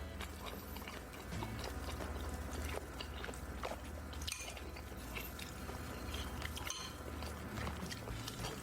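Close-up eating sounds: chewing and small wet mouth noises, with scattered light clicks of utensils on dishes, over a low steady hum.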